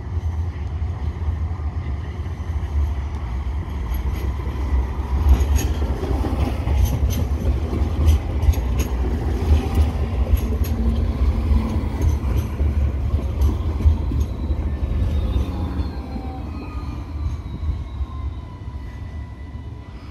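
Sydney Light Rail tram approaching and passing close by on street track: a heavy rumble of wheels and running gear. As it passes there is a run of sharp clicks, and then a motor whine that falls in pitch as the tram moves away and the sound fades.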